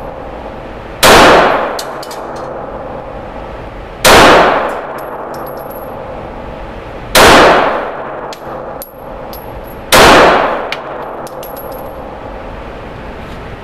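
Glock G19 9mm pistol firing four single shots about three seconds apart, each echoing off the walls of an indoor range. Each shot is followed by a few light metallic clinks of spent brass landing.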